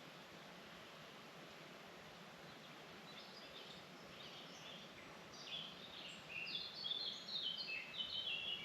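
A songbird singing a run of quick, high notes that starts about three seconds in and grows louder near the end, its phrases stepping down in pitch, over a steady forest hiss.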